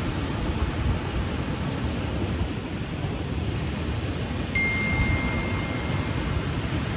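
Steady rushing noise of ocean surf and wind. About four and a half seconds in, a single high chime-like tone strikes and rings steadily for about two seconds.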